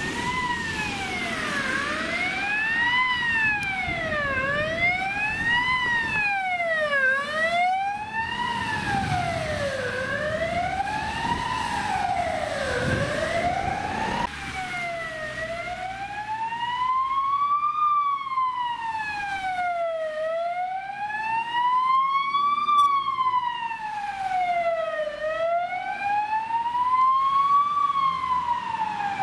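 Fire engine sirens on wail, rising and falling in pitch, with truck engine and traffic noise underneath. For the first half a MAN water tender's siren sweeps up and down about every two and a half seconds. About halfway through, the sound switches to an Iveco Magirus turntable ladder truck's siren, with slower, slightly higher sweeps about five seconds apart.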